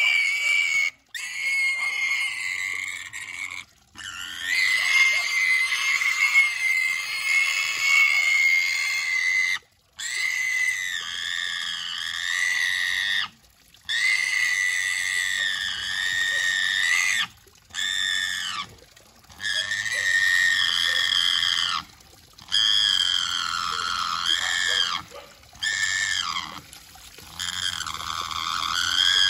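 Small pig squealing shrilly while it is held and doused with water, in about ten long, drawn-out screams of a second to several seconds each, broken by short pauses for breath. The pitch holds fairly steady at first and wavers up and down in the later squeals.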